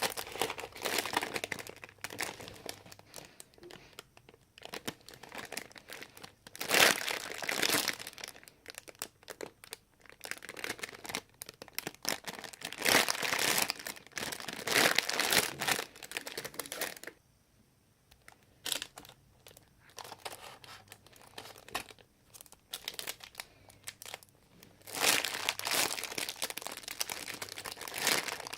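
Plastic crinkling and rustling in irregular bursts with short pauses, as squishy toys in plastic wrappers or bags are handled.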